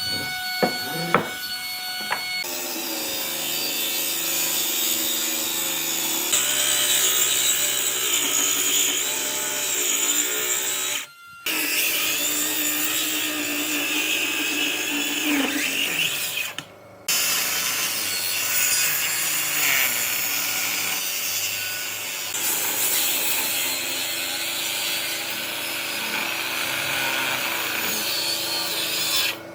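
Power tool working a wood slab, a steady rasping run broken into several segments by cuts, with a few sharp knocks near the start.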